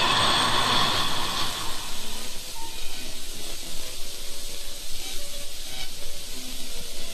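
Static hiss from an old FM radio broadcast recording. Several steady tones ride over it at first and fade out within about two seconds, leaving hiss with a few faint, short tones.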